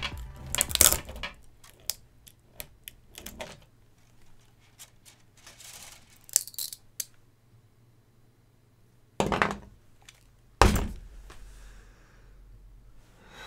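Clicks, clatter and knocks of a cordless drill and a plastic filament spool being handled on a desk, with two heavier thuds about a second and a half apart late on.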